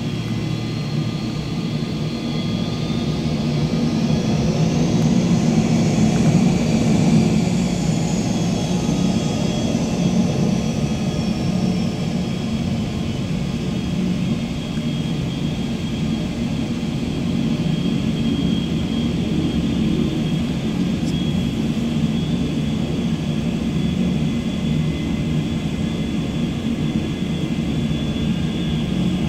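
Boeing 727-200's three Pratt & Whitney JT8D turbofans running at taxi power: a steady jet rumble with a high turbine whine. The whine swells and glides up then back down in pitch about five to ten seconds in as the jet turns.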